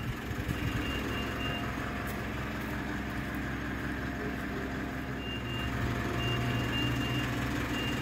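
A car's engine running at idle, with a high-pitched electronic warning beeper going off in runs of short beeps, once near the start and again through the last three seconds.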